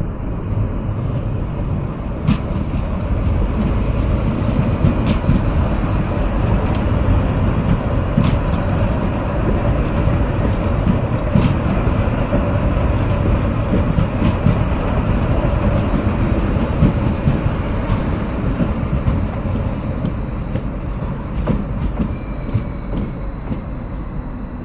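Slow electric train passing by from left to right: a steady rumble of wheels on the rails, with scattered sharp clicks and knocks from the wheels on rail joints.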